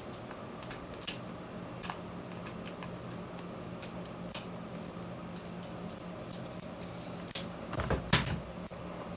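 Small clicks and taps of a cheap mechanical keyboard's plastic parts being handled while it is taken apart, with a louder clatter about eight seconds in. A steady low hum runs underneath.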